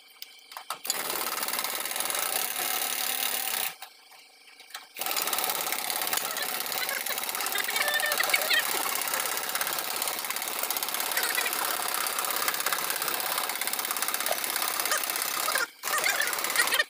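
A machine running in two long stretches, about three seconds and then about eleven seconds, each starting and stopping abruptly, with a harsh, noisy sound spread from low to very high pitches.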